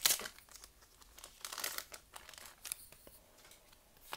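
Foil Pokémon card booster pack being torn open by hand: a loud rip of the wrapper right at the start, then scattered softer crinkles of the foil.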